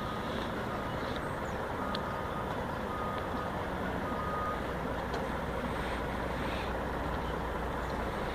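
A work truck's backup alarm beeping, a single high tone repeating about once a second and stopping about halfway through, over the steady low rumble of a vehicle driving.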